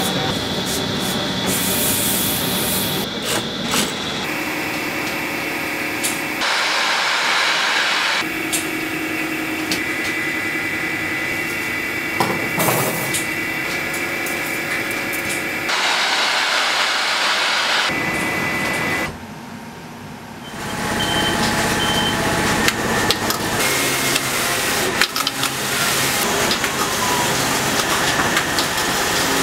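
Knitwear factory machinery running: steady hums and whines from knitting and sewing machines, cut together from several takes. Two short stretches of hiss and a brief drop in level come about two-thirds of the way through.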